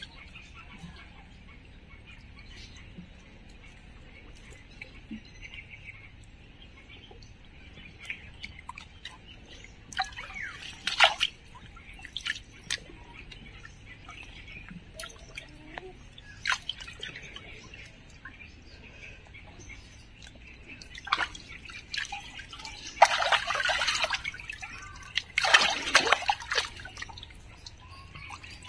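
Stream water splashing and dripping as a hand net is lifted and moved through it: scattered short splashes, then two longer, louder splashes near the end, over a faint steady hiss.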